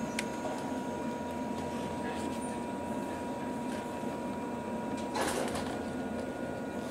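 Cabin sound of a JNR-era 115 series electric train pulling slowly away from a station: a steady low rumble and hum with a thin steady tone, and a short hiss about five seconds in.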